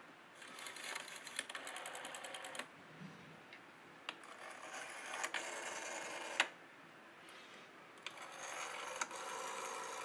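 Rotary telephone dial being dialed three times: each time the wound-up dial spins back with a whirring run of rapid, evenly spaced pulse clicks lasting about two seconds.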